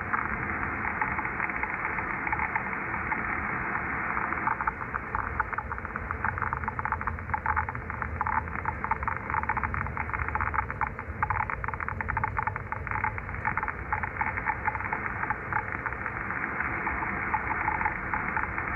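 Scratching, digital-sounding interference received on an Icom IC-7300 HF transceiver: dense, rapid, irregular crackling clicks over a steady hiss, cut off above about 3 kHz by the receiver's passband. Its source is unidentified; it is heard all over the HF spectrum.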